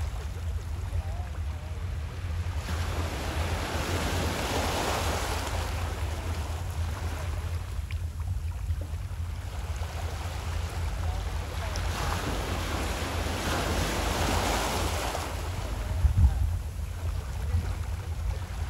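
Small waves washing in at the water's edge twice, each swelling and fading over about three seconds, over a steady low rumble of wind on the microphone. There is a brief bump near the end.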